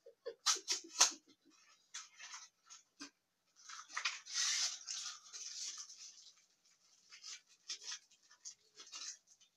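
Plastic toy packaging being torn open and crinkled by hand: three sharp crackles within the first second, scattered small crackles, then a longer crinkling rustle around the middle.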